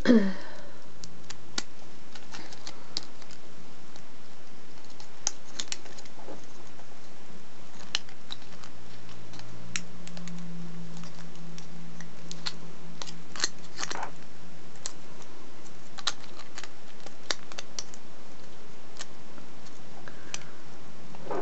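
Thin gold foil from a chocolate-coin wrapper crinkling and crackling in scattered small clicks as fingers fold and bend it around a stem.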